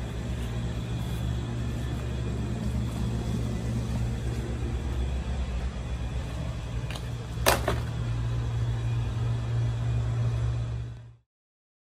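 A steady low mechanical hum, with a faint click about seven seconds in and a sharp, louder click just after. It fades out quickly about a second before the end.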